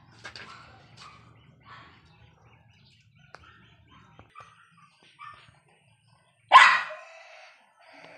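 A dog barks once, loudly, about six and a half seconds in. Before that there are only faint, short, scattered sounds.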